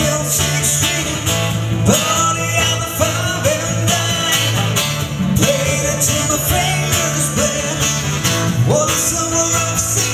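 Live band playing a song: a singer over guitar, electric bass, drum kit and keyboard.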